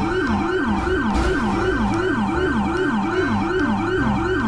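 Police car siren in a fast yelp, sweeping up and down about four times a second.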